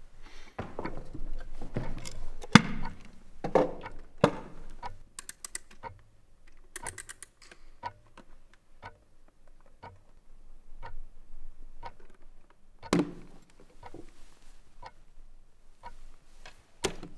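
Mechanical chess clock ticking about once a second, with a few louder knocks and a quick run of sharp clicks a little after the middle.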